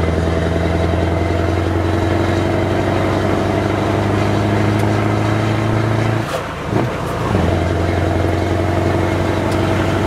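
Scania 164L 580 V8 truck engine with open exhaust pipes, running steadily under way as heard from inside the cab. About six seconds in, the note breaks off briefly and dips, then picks up again at the same pitch.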